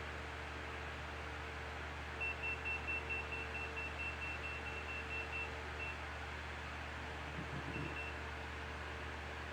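Handheld radiation detector beeping: a quick run of short, high, same-pitched beeps, about five a second, starting about two seconds in and lasting some three seconds, then a few single beeps later. A steady low electrical hum runs underneath.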